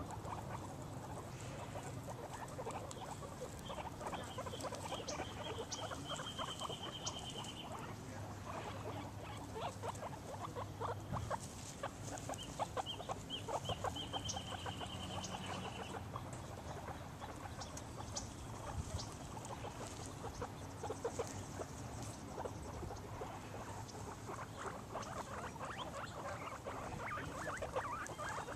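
Guinea pig chutting and squeaking in short irregular sounds while moving about in grass, over rustling of grass. A rapid high trill comes twice.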